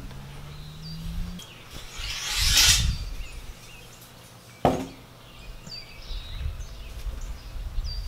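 Steel rebar being handled on a sand bed: a scraping swell about two to three seconds in and one sharp clack near the middle. Small birds chirp now and then.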